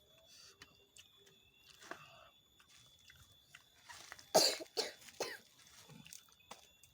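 A man coughing, three or four coughs in quick succession about four seconds in.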